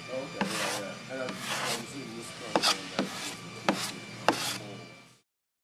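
Metal putty knife scraping back and forth across a rowing shell's hull, troweling thickened epoxy filler into a small hole: a run of rasping strokes with a few sharp ticks. The sound cuts off suddenly near the end.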